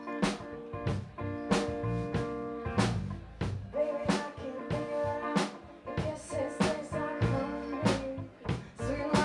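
A live rock band playing: electric guitar chords over a drum kit's steady beat, with a woman singing.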